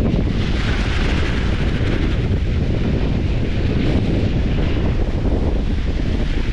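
Skis sliding and scraping through soft spring snow, a hissing swish about a second in and another, fainter one around four seconds, over a steady low rumble of wind on the microphone.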